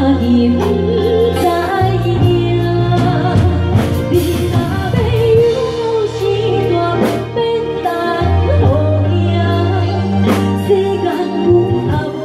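A woman singing a slow Hokkien ballad live into a microphone, backed by a band with keyboard organ, bass and drums. Sustained bass notes change every couple of seconds under the melody, with regular drum and cymbal hits.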